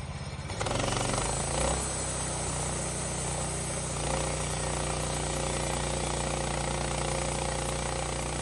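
Sawmill engine idling, then throttled up about half a second in to a loud steady run, with a harsh rushing noise over the engine hum that fits the saw cutting through a white oak log.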